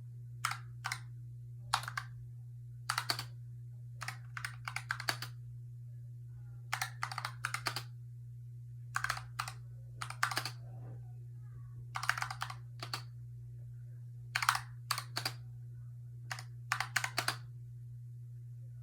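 Typing on a Razer Huntsman Tournament Edition keyboard, its linear optical switches clacking in quick bursts of keystrokes with short pauses between words, over a steady low hum.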